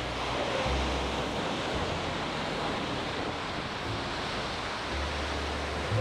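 Sea surf washing onto the shore in a steady rush, with some wind.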